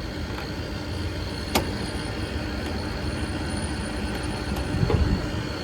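Steady low mechanical hum of running machinery, with one sharp click about a second and a half in.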